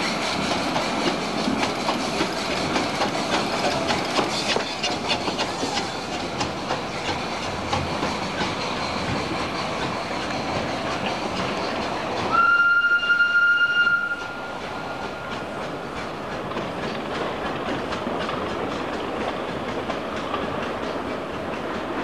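Narrow-gauge steam locomotive working a train past, with a steady chuffing and clatter of wheels on the rails. About halfway through it gives one steam whistle blast, a single steady note held for about a second and a half. Afterwards the running sound goes on a little quieter as the train draws away.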